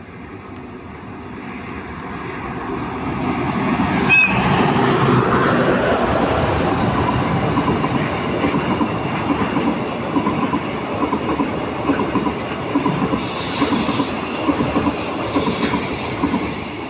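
Freight train hauled by an EH200 electric locomotive approaching and passing close by, growing louder over the first four seconds, then the steady rhythmic clatter of the wagons' wheels over the rail joints.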